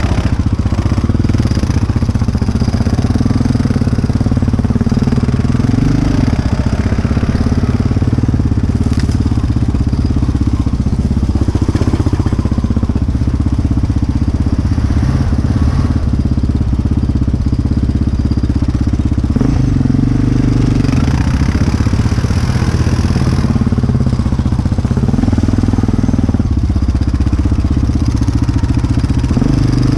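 A sport ATV's engine running at low trail speed close to the microphone, its note rising and falling a few times with the throttle.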